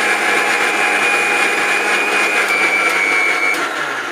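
Miyako 2000-watt mixer grinder running at speed, its motor whining as the blades chop about a kilogram of ginger with water into a liquid paste. Near the end the whine breaks off briefly, then climbs back up.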